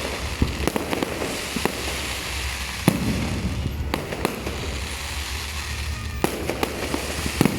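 Fireworks going off: a string of sharp bangs and pops at irregular intervals, the loudest about three seconds in, over a steady background rumble.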